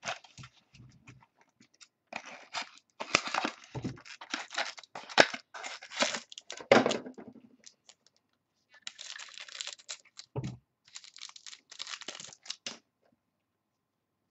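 Foil wrapper of a football trading-card pack tearing and crinkling in irregular bursts as the pack is opened and the cards are handled, in two spells separated by a short pause.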